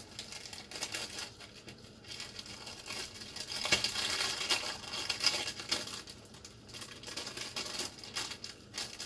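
Packaging crinkling and rustling as it is handled and pulled open by hand, with many small crackles, busiest and loudest in the middle.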